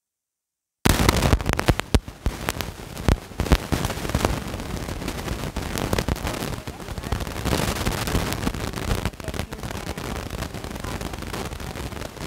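Plastic and foil snack packets crinkling and rustling as a hand moves them about in a cardboard box, close to the microphone. The crackling starts suddenly about a second in, with many sharp snaps.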